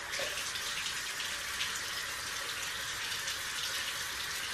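Tap water running steadily into a sink, with splashing as a face is rinsed by hand.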